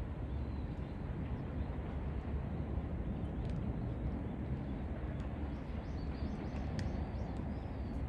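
Steady low outdoor rumble of open-air lakeside ambience, with a few faint high bird calls about five to seven seconds in.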